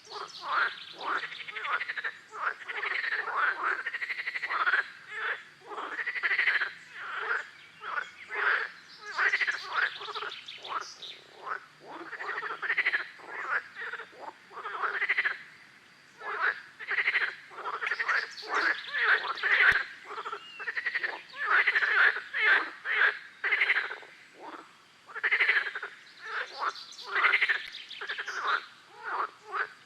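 A chorus of frogs croaking: many short calls overlapping in quick runs, with brief lulls between them.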